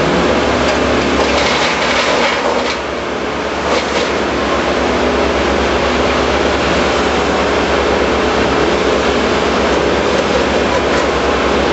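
Engine of heavy tree-removal equipment running steadily, with a few short knocks and crackles in the first few seconds.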